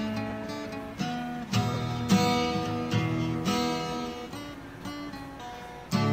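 Background music: an acoustic guitar strumming chords, each chord ringing out and fading before the next strum.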